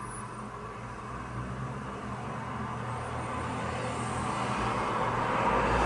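Road traffic noise coming in through an open window, growing steadily louder as a vehicle passes.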